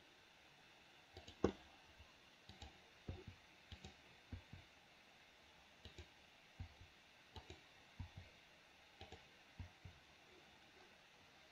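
Faint, irregular clicking of a computer mouse and keyboard, about two clicks a second and often in quick pairs, with one louder click about a second and a half in.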